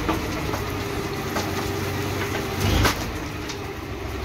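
Tractor engine running while its tipping trolley dumps a load of soil and stones, the dirt sliding and tumbling out of the raised bed. A louder rush of falling soil comes about two and a half seconds in.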